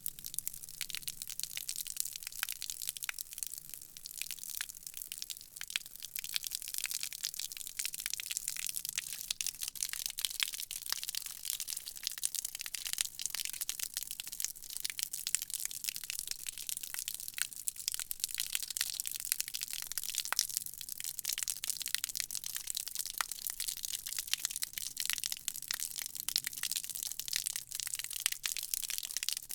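Water from a garden hose spraying onto concrete: a steady, hissing spatter dense with tiny crackling splashes.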